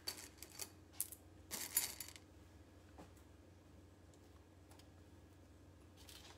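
Pastel M&M candies clicking and rattling together as a handful is gathered, with a brief rustle about a second and a half in, then a few faint light ticks as single candies are handled.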